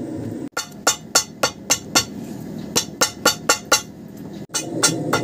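A quick series of sharp, clinking clicks, about three to four a second, broken off abruptly twice.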